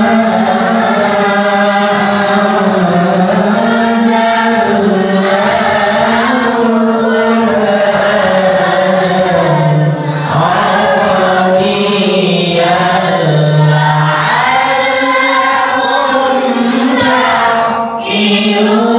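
A group of Qur'an students chanting a recitation together in the melodic tilawah style, with long drawn-out notes that rise and fall. There is a brief break near the end, after which the chanting picks up again.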